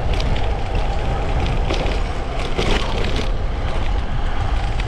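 Wind rushing over the microphone and tyre rumble from a road bike coasting fast down a long descent, with scattered clicks and rattles from the road surface.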